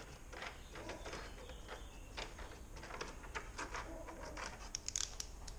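Faint, irregular clicks and scrapes of a crosshead screw being worked loose by hand from the plastic front grille mounting.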